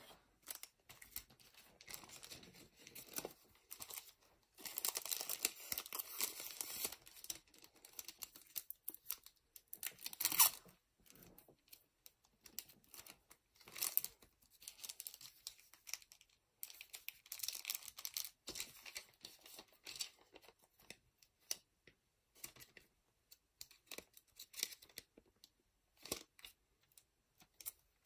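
Foil booster packs and clear plastic bags crinkling and rustling as they are handled, in irregular bursts with crisp tearing-like rustles. The loudest burst comes about ten seconds in.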